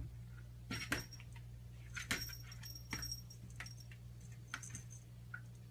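A small bell on a cat's collar jingling in a few short rings, with sharp taps of the cat's paws against a door as it bats at it.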